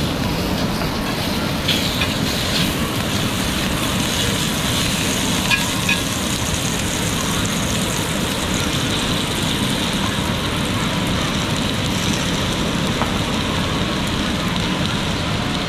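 Sausages sizzling in oil in a cast-iron skillet over a gas camp stove, with a steady rushing noise underneath. A few light clicks of metal tongs come in the first six seconds.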